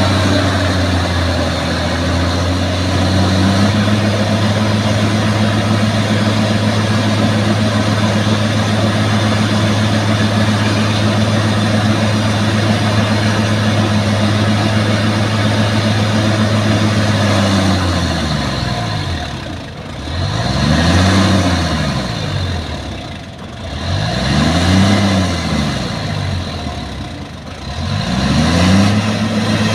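Bulldozer diesel engine running hard at a steady speed, then revving down and back up three times in a row, as it works to pull out a sunken bulldozer.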